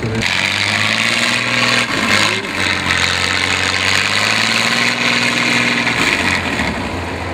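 Heavy off-road trial truck's engine running under load as the truck crawls over a steep mound, its pitch stepping a couple of times, with a steady hiss above it.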